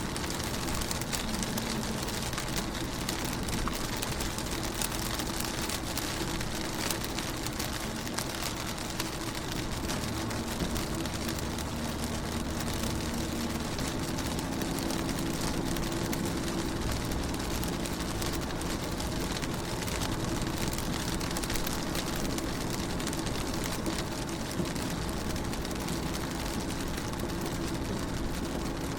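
Rain falling on a car window: many small drop ticks over a steady hiss, with a low steady hum underneath.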